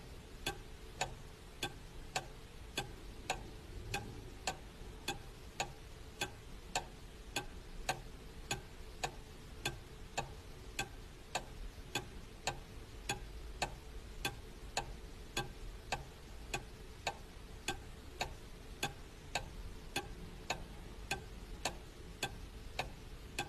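A clock sound effect ticking steadily, a little under two ticks a second, over a faint steady hum, in place of the street sound.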